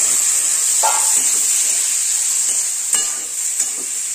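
Prawns sizzling in hot oil in a metal wok, a steady frying hiss, while a spatula stirs them, knocking against the pan about a second in and again around three seconds in.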